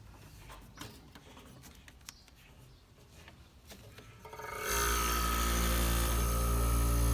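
A few faint clicks and rubs of handling, then, about four and a half seconds in, a long-unused 8,000 BTU vintage window air conditioner starts up suddenly and runs with a loud, steady hum and a whine over it.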